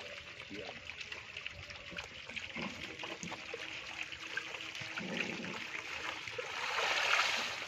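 Shallow muddy water sloshing and trickling as hands work a bamboo basket of live puti fish, with small splashes and clicks throughout and a louder rush of water near the end.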